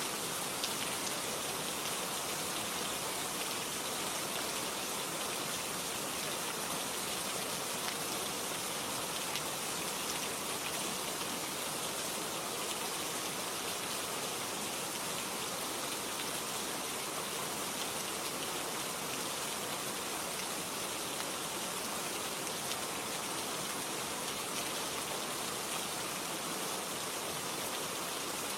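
Steady rain ambience: an even hiss of rainfall with faint scattered drop ticks.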